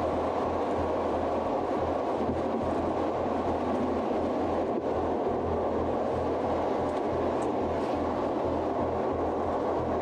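Steady rumble and hiss of engine and road noise inside a police patrol car's cabin.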